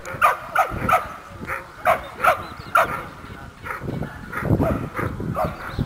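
A dog barking repeatedly in short, sharp barks, about two a second, with the barks growing fainter in the second half, where a low rumbling noise comes in.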